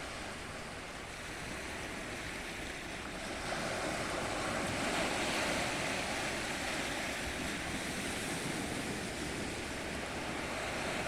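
Ocean surf: waves washing in steadily, swelling louder about three and a half seconds in.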